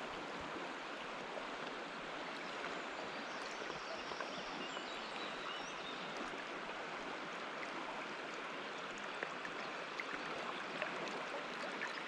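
Steady rush of a large river's current flowing close to the water surface.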